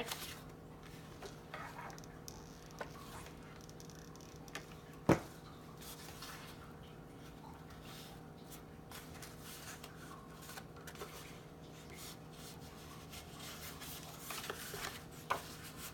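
Faint rubbing and rustling of paper rose petals being handled, pressed and shaped by hand, with one sharp click about five seconds in.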